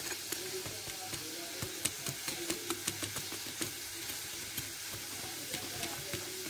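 Battered chicken pieces deep-frying in hot oil: a steady sizzle with frequent sharp crackles and pops.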